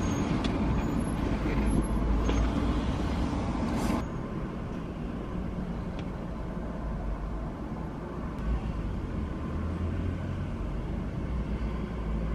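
Road traffic and vehicle engines heard from inside a parked car. A car door shuts about four seconds in, after which the traffic sounds quieter and duller.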